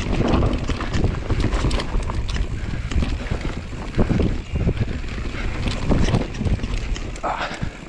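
Mountain bike descending a dirt singletrack at speed: heavy wind on the microphone over tyre noise, with the bike rattling and knocking over bumps.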